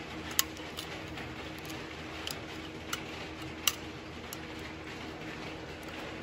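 Glock 26 magazine being worked by hand, its polymer body, spring and floorplate insert giving a scattered series of small sharp clicks. The sharpest come about half a second in and again just before four seconds in.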